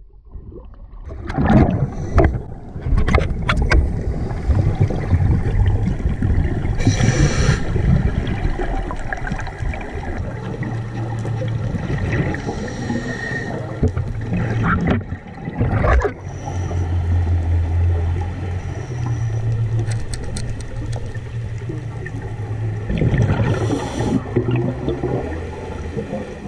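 Scuba diving heard underwater: a diver's regulator breathing, with bursts of exhaled bubbles every several seconds, over a low steady rumble and muffled water noise.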